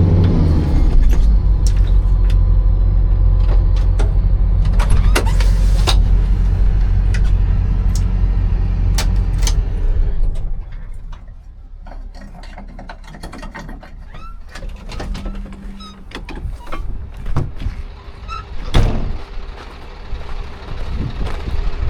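Hitachi 260 excavator's diesel engine running at a low, steady rumble, then cutting out about ten seconds in. Scattered clicks and knocks follow.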